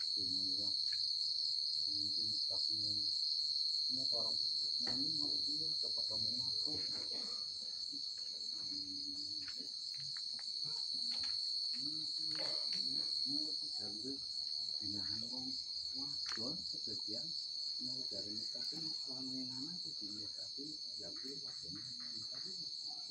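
Night chorus of crickets: a steady, shrill trill with a faster pulsing trill above it, unbroken throughout. Faint low voices and a few short clicks sit underneath.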